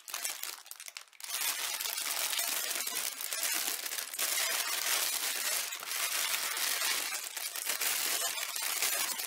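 Clear plastic bag crinkling and rustling as hands open it and handle the small plastic packets of diamond-painting rhinestones inside. It starts faintly, then gets louder about a second in and keeps on as a dense crackle.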